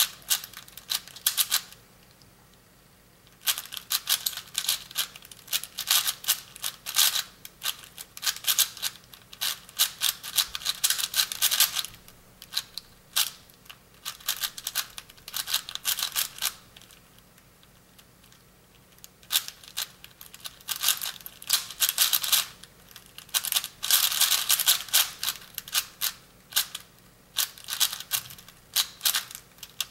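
Plastic ShenShou 5x5 speed cube clicking and clattering as its layers are turned quickly by hand, in bursts of rapid turns broken by short pauses, once a couple of seconds in and again for a second or two past the middle.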